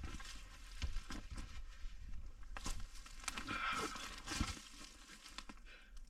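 Irregular crunching and rustling of a hiker's footsteps and movement on dry brush and rocky ground, with a low wind rumble on the microphone that drops away about four and a half seconds in.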